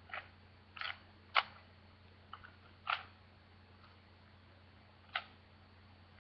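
Speed cube's layers being twisted by hand during scrambling, giving a few short, sharp clicks at irregular intervals.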